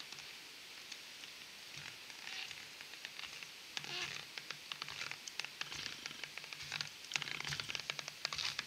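Stilt feet crunching in crunchy, compacting snow, step after step, the crunches getting louder and more frequent as the stilt walker comes closer.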